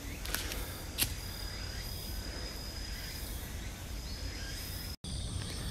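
Forest ambience of insects: a thin, steady high trill that stops and starts, with a single sharp click about a second in. After an abrupt cut about five seconds in, a different steady, pulsing high insect chorus.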